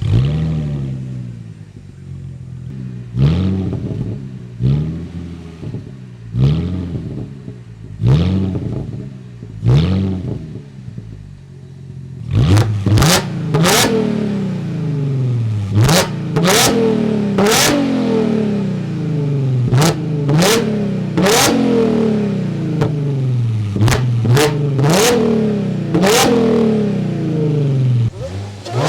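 Supercharged 3.0 V6 of an Audi S5, with an aftermarket downpipe and exhaust, starting up and being revved repeatedly while standing. There are about five slow rises and falls in pitch, then from about twelve seconds in, quicker and louder blips with sharp cracks at the top of several.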